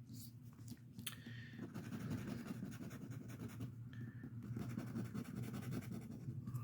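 Instant lottery scratch ticket being scratched off in quick, even, repeated strokes, with a few short scrapes in the first second.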